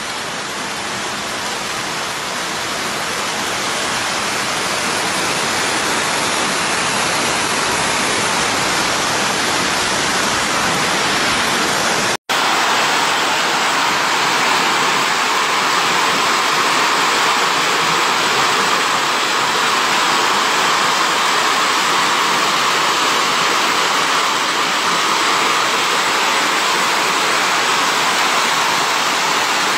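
Heavy hailstorm: hail and rain pelting down in a dense, steady rush of noise. It breaks off for an instant about twelve seconds in, then carries on fuller in the middle range.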